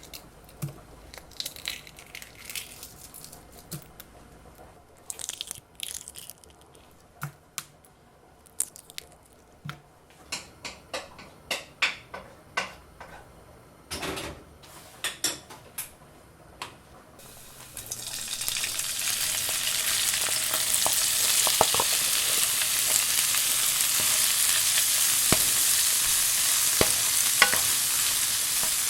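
Kitchen foley: scattered light clicks and knocks for the first seventeen seconds or so, then food starts sizzling in a hot pan, the sizzle swelling over about two seconds and holding steady with small pops and crackles.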